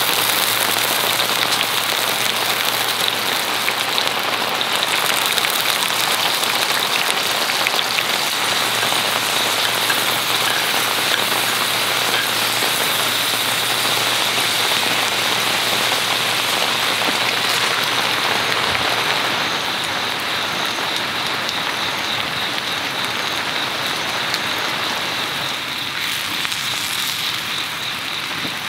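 Corn kernels sizzling in hot oil in a cast-iron skillet, a steady hiss that starts as the corn goes into the pan, mixed with rain falling on the shelter; it eases a little about two-thirds of the way through.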